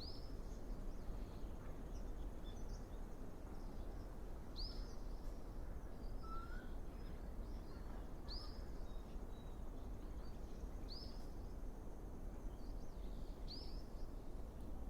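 A bird's short, high call, repeated five times about every three seconds, over a steady low rush of outdoor background noise.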